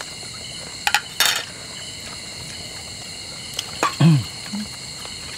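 Steady high-pitched chirring of insects, with a few sharp clinks of spoons on dishes about a second in and a brief voice sound near four seconds in.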